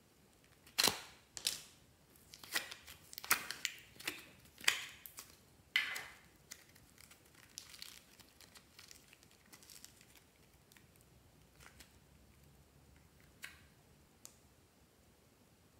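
A plastic heart-shaped slime container clicks open twice, then sticky slime crackles and tears as it is peeled and stretched out of it, turning to softer squishing before a couple of light taps near the end.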